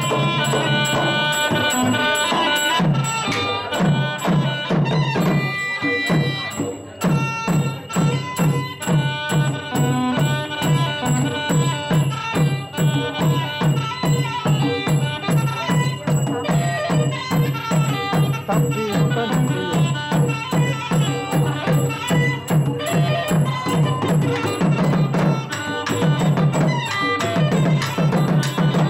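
Traditional southern Thai Nora ensemble music: a pi oboe plays a wavering melody over a steady drum beat, with drums joining a few seconds in.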